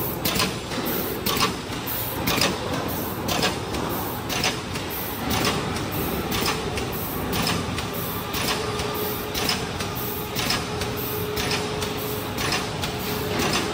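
Third-film stand-up pouch making machine running, a steady mechanical noise broken by a short sharp burst about once a second as it cycles. A faint steady whine joins from about the middle on.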